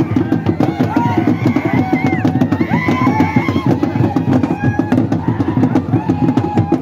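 Fast, dense drumming from a group of drums, with voices calling and singing over the beat.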